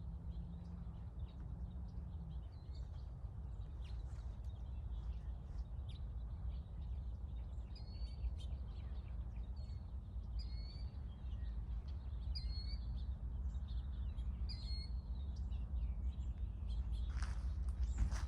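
A bird gives a short, high chirp about every two seconds over a steady low rumble.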